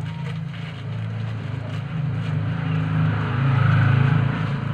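A motor vehicle's engine humming steadily, growing louder to a peak near the end and then easing off, as a vehicle passing close by does.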